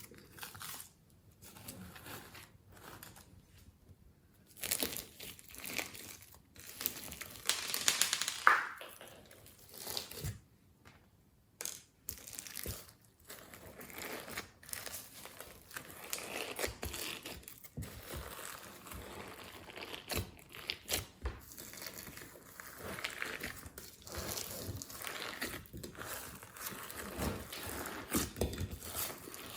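Hands working glossy slime, with irregular sticky crackling, popping and squishing as it is stretched and pressed. The loudest squelch comes about eight seconds in.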